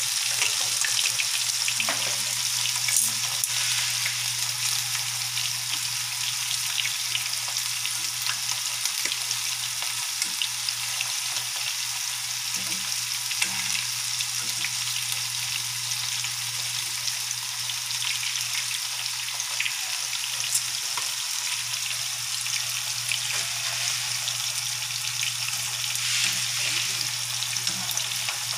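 Battered squid rings deep-frying in hot oil in a pan: a steady sizzling hiss with fine crackling, and a few sharp clicks as metal tongs turn the rings. A steady low hum runs underneath.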